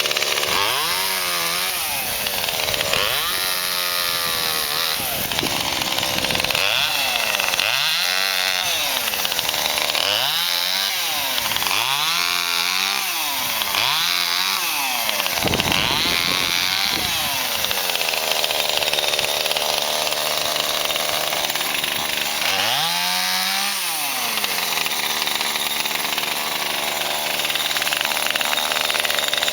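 Cheap petrol chainsaw cutting wood, its engine revving up and down again and again, about every couple of seconds, with a steadier high-revving stretch about two-thirds of the way through.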